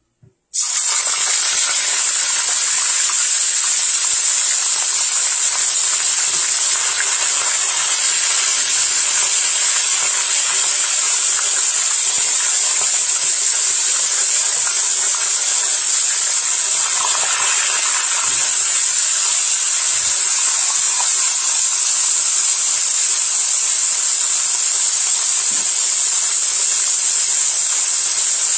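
Tilapia pieces frying in hot oil in a wok, a loud steady sizzle that starts suddenly about half a second in.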